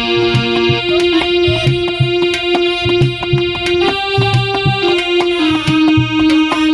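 Instrumental music: a reedy keyboard melody of held notes, like an accordion or harmonium, over a steady hand-drum beat.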